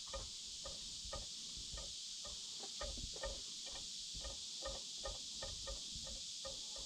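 Footsteps walking over the rock and dirt floor of a cave shelter: a run of short, light taps a few per second, over a steady high-pitched hiss.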